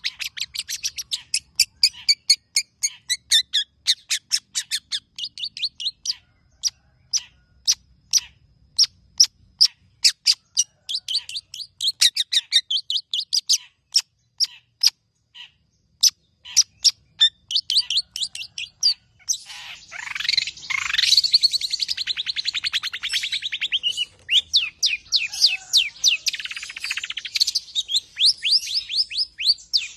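Long-tailed shrike (cendet) singing: long runs of sharp, rapid-fire notes, several a second, with a harsh rasping chatter about two-thirds of the way through before the quick notes pick up again.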